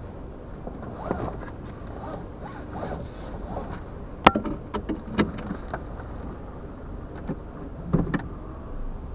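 Car being driven: steady low road and engine rumble, with several sharp knocks, the loudest about four seconds in and others around five and eight seconds.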